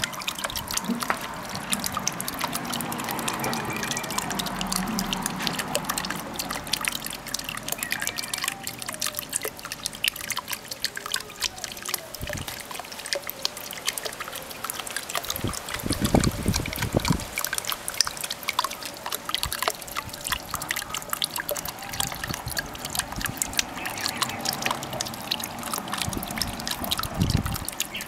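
Water from a small pond pump's outlet trickling and splashing into the pond: a steady patter of drips and trickles, with a couple of low bumps around the middle.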